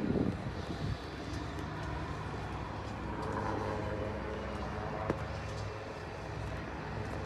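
Distant HAL Light Combat Helicopter in flight, its rotor and Shakti turboshaft engines giving a low steady drone under background hiss. One sharp click about five seconds in.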